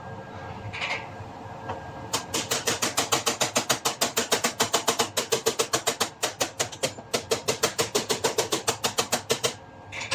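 Auto body hammer tapping a dented sheet-metal panel against a dolly: a fast, even run of sharp metallic taps, about seven a second, with a brief pause partway through and a single knock near the start and near the end.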